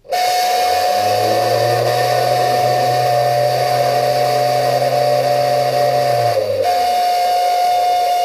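Deer feeder spinner motor running on a test cycle from a 6-volt battery: a loud, steady whine over a hiss that starts suddenly, with a lower hum that rises as the motor spins up about a second in and winds down about six and a half seconds in.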